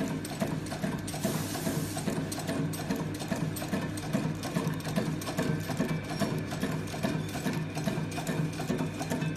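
HDK-100D heat-shrink tubing cutting machine running, a fast, even rhythm of mechanical strokes over a steady motor hum.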